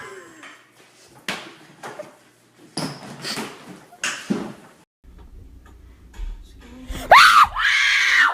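A few short knocks or thumps, then near the end a person letting out a loud, sudden scream of fright lasting about a second.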